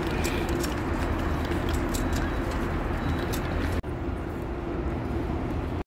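Rolling suitcases and footsteps on stone paving: irregular clicks over a steady low hum. About four seconds in the sound cuts to a quieter, duller hum with fewer clicks.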